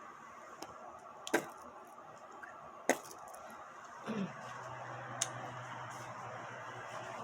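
Three sharp single clicks or knocks, the first the loudest, over a low steady hum. A short sound falling in pitch comes about four seconds in, after which the hum is steadier.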